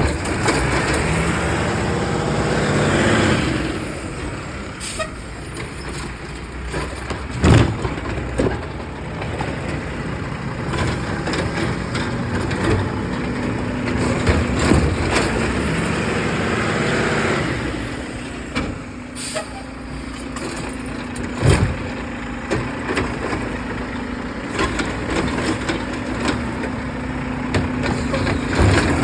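Garbage truck working at the kerb: its engine running steadily, with two long hisses and two sharp bangs, about seven seconds and twenty-one seconds in.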